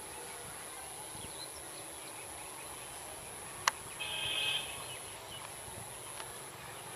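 Steady high-pitched buzz of insects such as cicadas or crickets, with a sharp click a little past halfway and a short bird call right after it.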